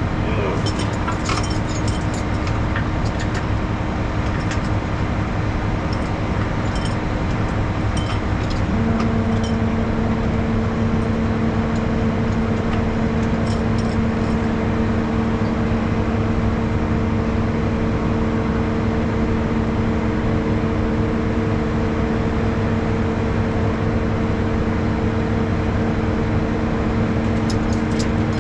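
Rollback truck's engine running steadily, with light metallic clinks of tie-down chains being handled in the first several seconds. About nine seconds in, a steady higher hum joins and holds.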